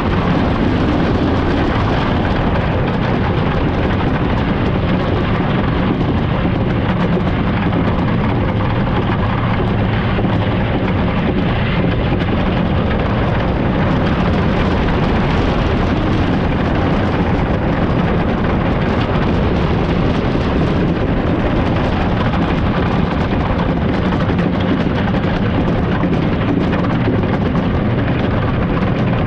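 Great Coasters International train running at speed on a wooden roller coaster track: a loud, steady rumble of wheels on the wooden rails.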